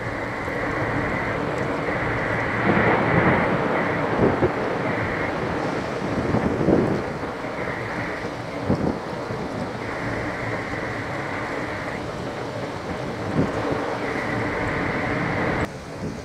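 Storm wind buffeting a phone's microphone: a rough, rushing noise with louder gusts every second or two, dropping off sharply near the end.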